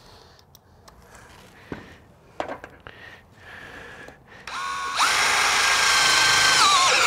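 DeWalt cordless drill driving a screw through the overlapping tabs of metal reglet flashing to lock them together. After a couple of light clicks, the motor starts with a whine about four and a half seconds in and steps up to a steady high whine. It then slows with falling pitch as the screw seats and stops near the end.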